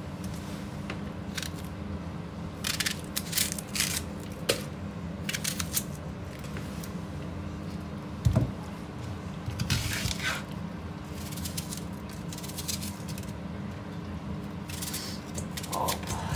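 Kitchen knife slicing onions on a cutting board: irregular short crisp cuts, some in quick runs, with a dull thump about eight seconds in.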